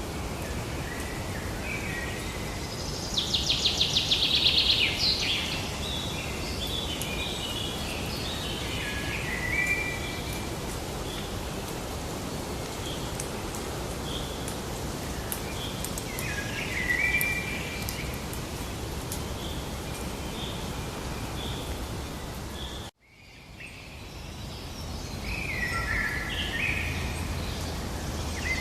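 Songbirds calling and chirping over a steady natural background hiss, with one loud rapid trill about three seconds in. Near the end the sound cuts out suddenly and fades back in.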